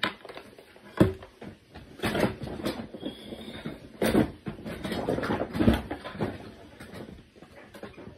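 Irregular knocks and clatters of toys being handled and set down, four sharper knocks a second or two apart, with rustling in between.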